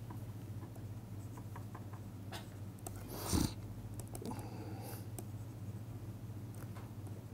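A steady low hum with scattered faint taps and scrapes of a stylus writing on a tablet screen. A brief louder noise comes about three seconds in.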